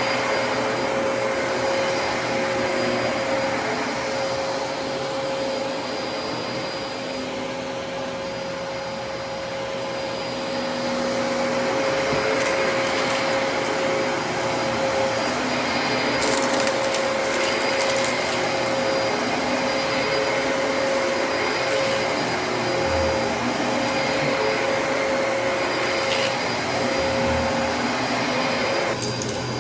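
Dyson DC33 upright vacuum cleaner running steadily: a constant motor whine over rushing air, with a few brief crackles along the way.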